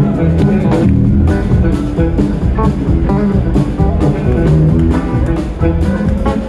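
A live rock band playing: electric guitar lines over bass guitar and a drum kit keeping a steady beat.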